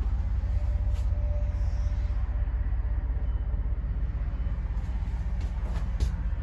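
Truck engine idling steadily, a low, evenly pulsing rumble, with a few sharp clicks about a second in and near the end.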